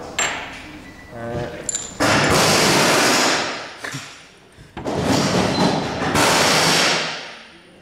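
Two long blasts of compressed air hissing, the first starting suddenly about two seconds in, the second about five seconds in and fading out near the end.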